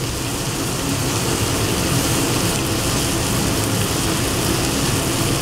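Chicken breasts, sausage, tomatoes and mushrooms frying in oil and butter in a hot sauté pan: a steady sizzle over a low, steady rumble.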